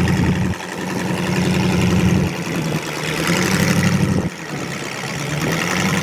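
Off-road racing vehicle's engine running loudly near idle. Its sound drops off suddenly about half a second, two seconds and four seconds in, building back up after each drop.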